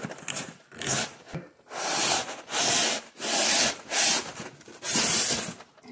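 Expanded polystyrene packing foam rubbing and scraping against the foam and cardboard of the box as it is worked loose by hand, in about six strokes of roughly half a second each.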